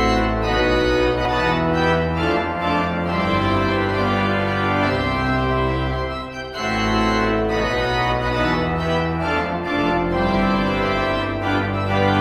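Background music of slow, held chords, with a short dip about six seconds in.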